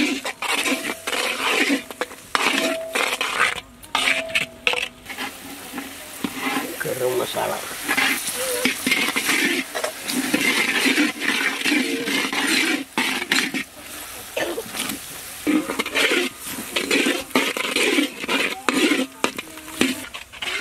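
Long steel ladle stirring and scraping whole red chillies and peanuts frying in hot oil in a large iron kadai: the oil sizzles steadily under repeated metal scrapes and clinks against the pan.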